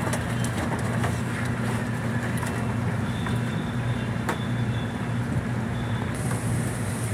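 An engine runs steadily with a low hum while a hoisted plastic tub tips whole tuna out onto ice, with a few short knocks; the sharpest comes about four seconds in, as the fish slide out.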